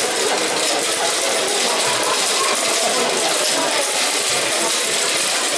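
Numbered balls clattering continuously inside spinning wire-cage lottery drums.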